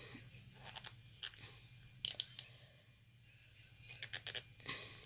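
Plastic container being gripped through a shirt and twisted to open it: scattered sharp clicks and crunching handling noises, the loudest cluster about two seconds in and another near the end.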